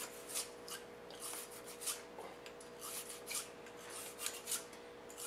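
A bore brush wet with Ballistol scrubbed back and forth inside a Glock pistol barrel, a quick run of short scraping strokes about two or three a second, working lead fouling out of the bore.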